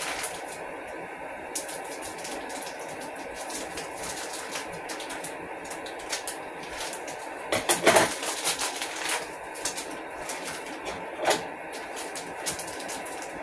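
Scissors snipping and crinkling open a plastic packet, a run of sharp clicks with a louder cluster about eight seconds in, over the steady hiss of a gas burner under a boiling pot.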